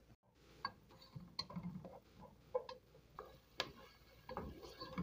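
Wooden spoon stirring chopped onion in oil in a non-stick pot, giving irregular light knocks and scrapes against the pan.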